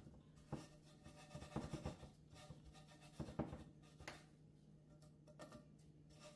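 Scotch-Brite pad scrubbing baked-on old oil crud off a Jeep valve cover: faint, irregular scratchy rubbing strokes, with a steady low hum underneath.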